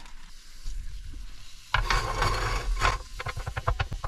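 Beef mince sizzling in a hot griddle pan. A little under two seconds in, the sizzle jumps louder as a wooden spatula starts breaking up the mince, then gives way to a run of quick scraping strokes against the pan.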